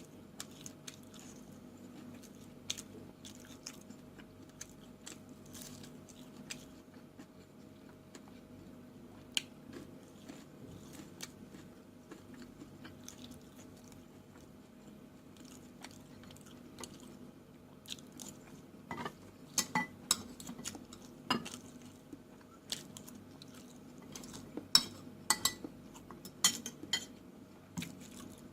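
Close-up eating sounds: chewing and biting with small mouth clicks, over a faint steady hum. About two-thirds of the way through comes a run of louder, sharp clinks of cutlery against dishes.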